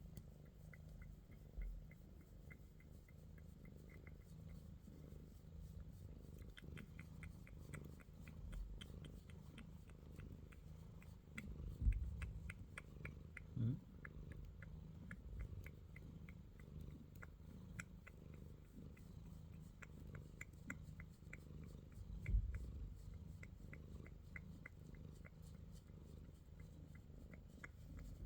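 Domestic cat purring steadily, close up, with a few soft low thumps about twelve, fourteen and twenty-two seconds in.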